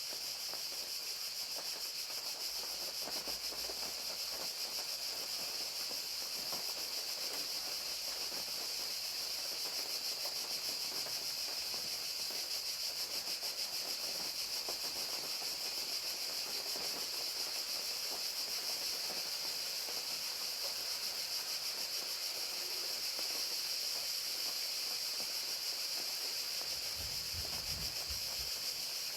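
Crickets chirring in a steady, unbroken chorus over the even hiss of falling rain. A soft, brief low thump comes near the end.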